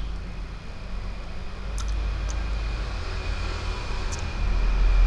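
A person sucking jelly out of a plastic jelly tube by mouth: airy breath-and-suction rumble close to a clip-on microphone, growing much louder near the end, with a few short clicks and a faint thin steady high tone.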